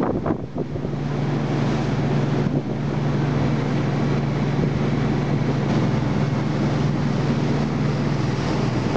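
Wooden motorboat's engine running steadily under way, a constant low drone over the rush of water and wind. Wind buffets the microphone briefly at the start.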